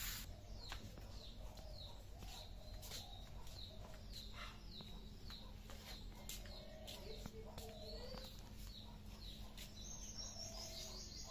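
Small birds chirping in a steady run of short, falling chirps, about two a second, with a few lower calls mixed in and a quick trill near the end.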